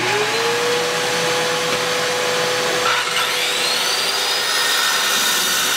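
A shop vacuum and an electric circular saw with a diamond blade starting up. One motor spins up at the start and settles into a steady hum, and a second, higher whine rises about three seconds in and holds.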